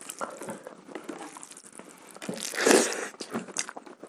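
Close-miked eating sounds: chewing, and fingers mixing soft rice with wet chicken curry, in many small clicks and squelches. About two and a half seconds in there is a louder burst of noise lasting about half a second.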